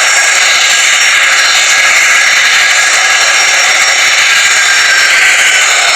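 A passenger jet's engines running: a loud, steady rushing hiss with a thin high whine held throughout.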